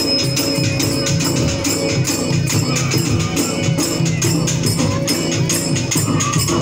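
Dhol drums beaten in a fast, steady folk rhythm, with a bright metallic jingle over each beat.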